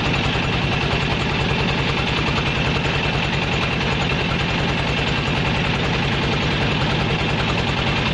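A boat's engine running steadily while under way, with an even, rapid low pulsing that holds constant throughout.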